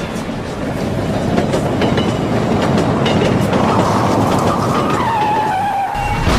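Metro train sound effect: a train running on rails, growing louder over the first couple of seconds, with a high steady squeal coming in about five seconds in.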